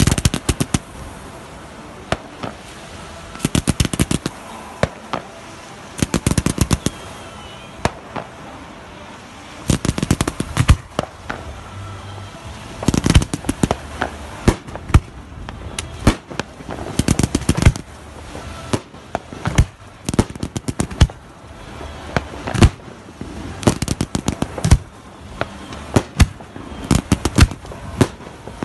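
Fireworks display: aerial shells bursting in clusters of sharp bangs and cracks, a new volley every two to three seconds.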